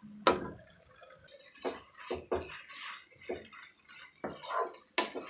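Wooden spatula stirring and turning wilting gongura leaves frying in oil in a nonstick pan: a run of irregular scrapes and wet, sizzly stirring strokes.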